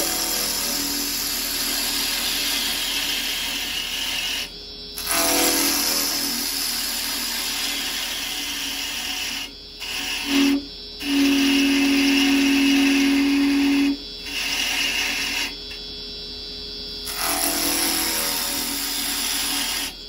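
Carbide chisel cutting spinning beech on a wood lathe: a steady hiss of shavings coming off, broken four times by short pauses as the tool eases off the wood. A louder steady hum from about the middle lasts for some three seconds.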